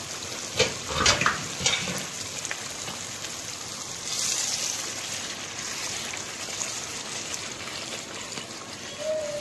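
Ground onion and tomato masala sizzling in oil in a wok, a steady hiss. A spatula scrapes and knocks against the pan several times in the first two seconds as it is stirred.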